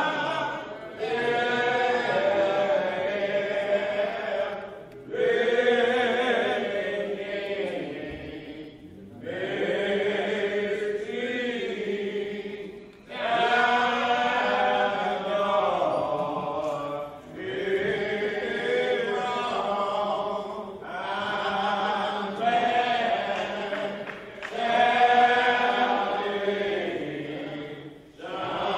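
Church congregation singing a slow devotional hymn together in long, drawn-out phrases, with a short break about every four seconds.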